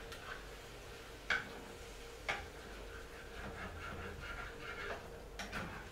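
A cooking utensil stirring food in a frying pan, with a few light taps and scrapes against the pan about one, two and five seconds in.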